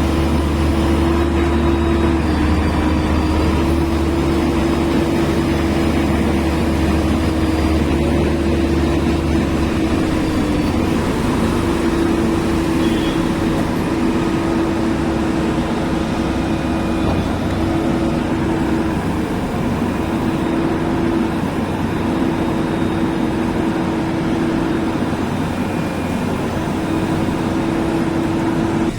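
JCB 3DX Super backhoe loader's diesel engine running steadily. Its deep low hum drops back about ten seconds in.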